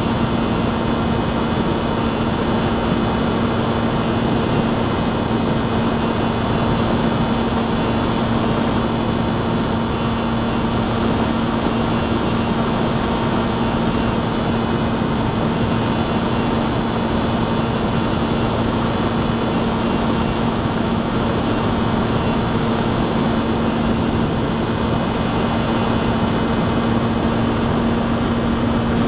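Electric motor and propeller of an FPV model aircraft running steadily in flight, a constant hum over airflow noise. A faint high beep sounds for about a second every two seconds.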